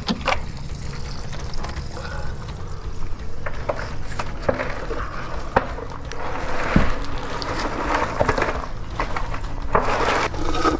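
An electric hot water cylinder being shifted by hand: irregular scrapes and knocks against the tank, with some water sounds.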